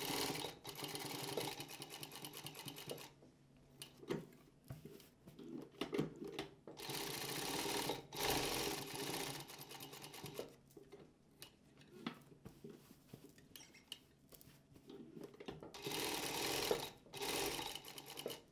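Jack 9100BA industrial computerized lockstitch sewing machine stitching in several short runs with pauses between them, as it stops at each corner of a triangle so the fabric can be turned.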